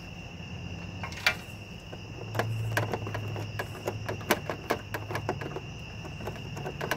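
Scattered short plastic clicks and taps as hands grip and shift a BMW E46 headlight unit in its mounting, over a steady high-pitched tone and a low hum.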